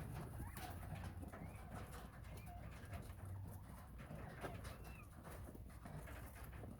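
Small quail in an aviary giving a few soft, short chirps over a scatter of small ticks and scratches, with a low steady hum underneath.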